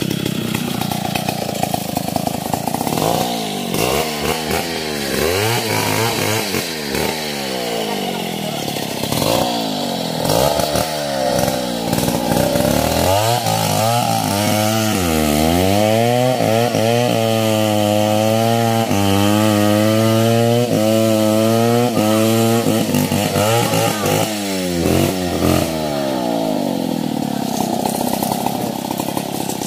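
Two-stroke chainsaw cutting through a log, its engine pitch repeatedly dropping and rising with throttle and load, and held high and fairly steady for several seconds in the middle.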